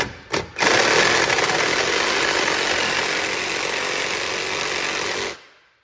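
Cordless reciprocating saw cutting through an oil pickup tube clamped in a bench vise: two quick blips of the trigger, then a steady cut of about five seconds that stops abruptly shortly before the end.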